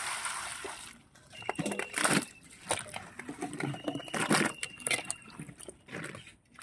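Water pouring onto cut taro stems in an aluminium bowl, stopping about a second in, followed by irregular splashes and knocks against the metal bowl as the pieces are washed in the water.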